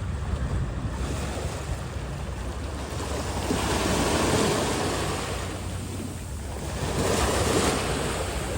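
Ocean surf washing on the shore, swelling twice, once about halfway through and again near the end, over a steady low rumble of wind on the microphone.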